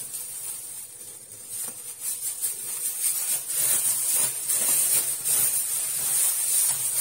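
Thin plastic bag crinkling and rustling as hands unwrap it, denser and louder from about two seconds in.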